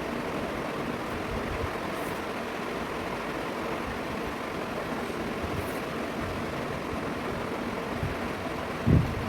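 Steady rushing background noise, with one short, loud low thump near the end.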